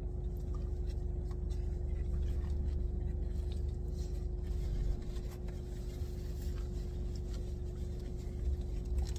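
Steady low hum of a car's cabin, with a faint constant tone riding over it. A few light clicks and paper rustles from burger wrappers are scattered through it.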